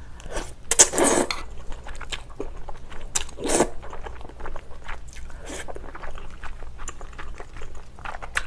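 Close-up mukbang eating: glass noodles in kimchi stew sauce being slurped, loudly about a second in and again twice around three and a half seconds in, then chewing. Small clicks of wooden chopsticks against the glass bowl run through.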